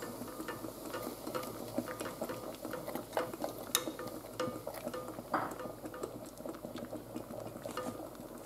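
Egg yolk frying in hot olive oil and melted beeswax in an enamel pot, a steady fine crackling sizzle as the mixture foams, with a metal spoon stirring and now and then clicking against the pot.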